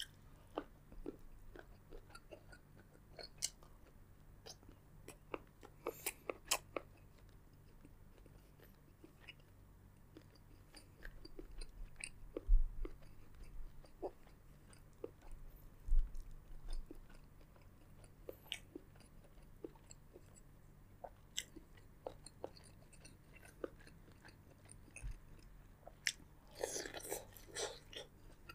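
Seafood boil being chewed and bitten close to the microphone, with scattered short clicks, crackles and crunches. About halfway through come two dull thumps a few seconds apart, the loudest sounds, and the chewing noises bunch up near the end.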